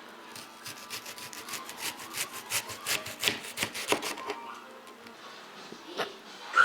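Chicken frying in a pan, sizzling with rapid irregular crackles and pops that thin out after about four seconds. Two sharp clicks come near the end.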